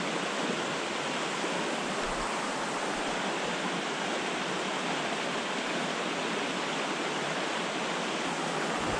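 Steady rush of fast white water in a small creek running high and swollen after heavy rain.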